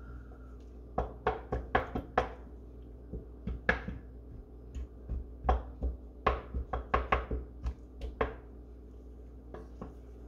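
Wooden spoon knocking and clicking against the sides of a metal saucepan while stirring melting hot chocolate: an irregular run of sharp taps that stops about eight seconds in, over a steady low hum.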